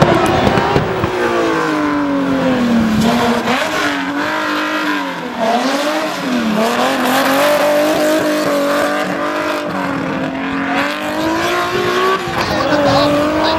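Race car engine revving hard, its pitch repeatedly climbing and falling as the throttle is lifted and reapplied through tight turns, with marked drops and recoveries about four and a half and six and a half seconds in.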